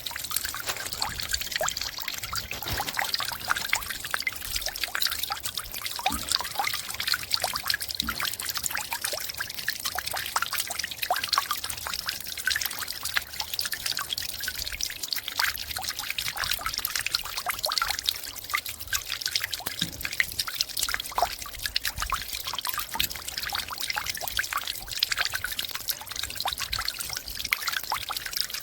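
Meltwater from melting snow trickling and pouring steadily, thick with small drips and splashes.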